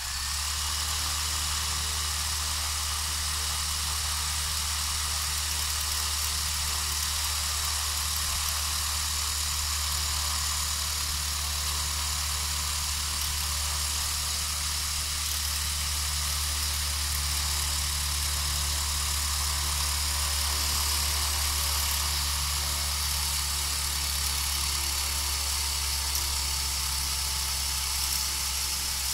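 A homemade cluster of three small brushed DC motors spinning a propeller shaft, whirring steadily at constant speed, with a low hum under the hiss of the motors and the propeller.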